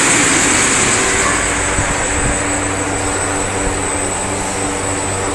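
Steady drone of automatic wood door pressing-line machinery, with a roller conveyor carrying a door panel: a constant low hum and a constant high whine, with a rushing hiss that fades over the first couple of seconds.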